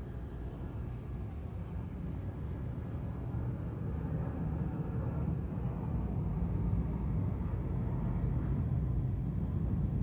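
Bombardier Global 6000 business jet's twin Rolls-Royce BR710 turbofans at climb power just after takeoff, a steady low rumble that grows slowly louder.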